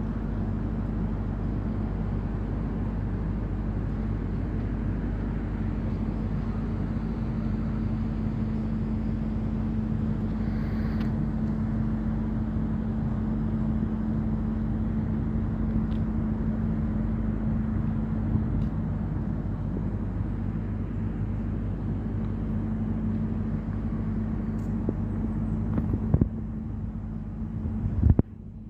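A drone giving a steady, continuous hum with a held tone. Two brief bumps come near the end.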